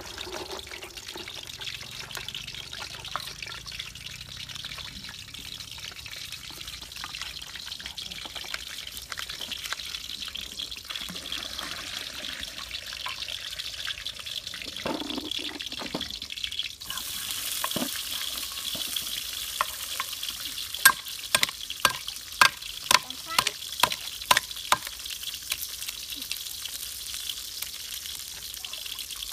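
Water sloshing as clams are washed by hand in a bucket of water and rinsed in a shallow creek, over a steady hiss. About two-thirds of the way in, a knife chops on a wooden cutting board: a run of about a dozen sharp knocks.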